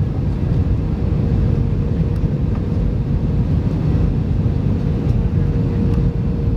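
Steady low rumble of engine and airflow noise inside an airliner cabin on approach, with a faint steady hum over it.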